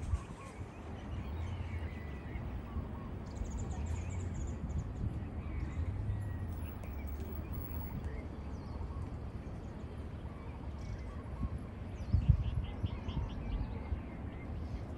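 Birds calling over a steady low rumble of outdoor noise: a rapid high trill about three seconds in, and a quick run of repeated chirps about twelve seconds in, where a low thump is the loudest moment.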